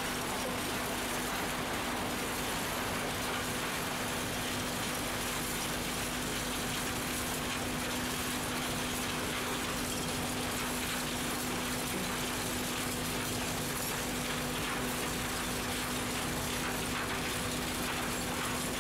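Scrap metal shredding line running: a steady machine hum with one constant low tone, under a continuous dense clatter of shredded metal pieces moving on the conveyor.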